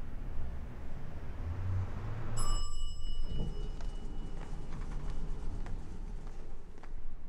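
A low rumble, then a single bright bell-like ding about two and a half seconds in that rings on and fades. Faint footsteps on a hard floor follow.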